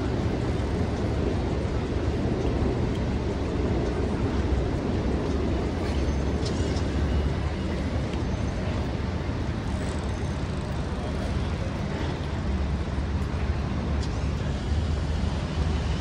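Steady rumble of city street traffic.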